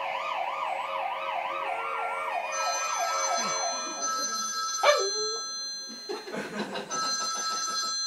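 Recorded ambulance siren played through a computer speaker: a fast rising-and-falling wail, about three cycles a second, that dies away about four seconds in and gives way to steady high electronic tones. A single sharp falling cry about five seconds in is the loudest moment.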